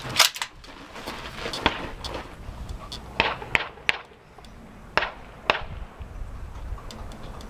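About six short, sharp cracks and clicks, one to two seconds apart, over a quiet outdoor background.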